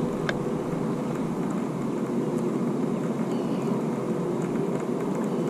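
Steady hum of a fishing boat's motor with a faint whine, holding even throughout.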